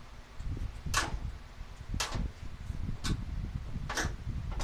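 Sharp ticks about once a second, evenly spaced like a clock, over a low rumble.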